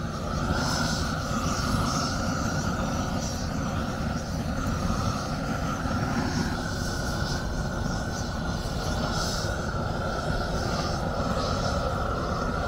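Propane weed-burner torch running steadily, its flame played over a peeled log to char the surface: a continuous rushing hiss.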